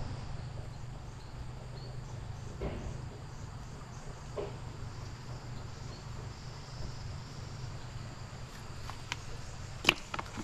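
Insects chirring steadily in the undergrowth, a high, faintly pulsing drone over a low steady rumble. A few soft knocks partway through, and a sharp click with some rustling near the end.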